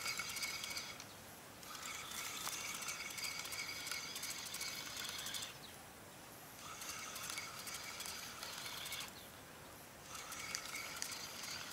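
Spinning reel being cranked in bursts of a few seconds with pauses of about a second, a fast clicking whir: a hooked fish being reeled in on a bottom rod.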